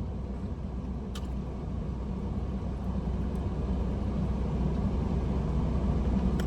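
Steady low rumble, like a vehicle running, slowly growing a little louder, with a faint click about a second in.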